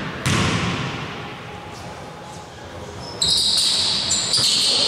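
A basketball bounces once on a hardwood gym floor, echoing in the large hall. Then, about three seconds in, sneakers squeak in short bursts as players move on the court during a free throw.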